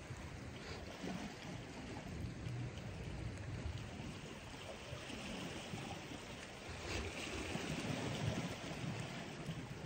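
Sea water lapping and sloshing against the rocks, with uneven low rumbling from wind on the microphone.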